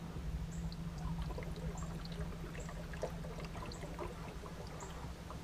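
Bow-mounted electric trolling motor running with a steady low hum, moving the boat, with water trickling and gurgling around the hull.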